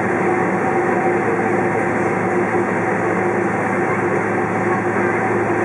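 Cabin noise of a Boeing 767-400ER taxiing, heard from a window seat by the wing: its General Electric CF6-80C2 turbofans at taxi power give a steady hum with a few steady tones, under a hiss of cabin air.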